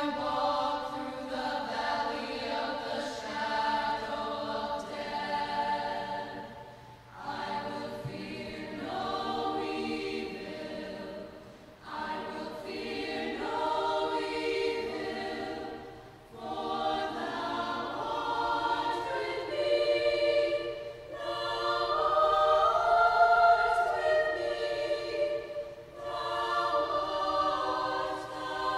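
Mixed youth choir singing in sustained phrases, with short pauses between phrases about a quarter, two fifths, halfway and near the end.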